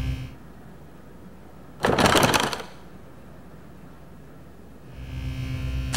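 A brief loud rasping crackle about two seconds in, then a low buzzing hum that swells in near the end.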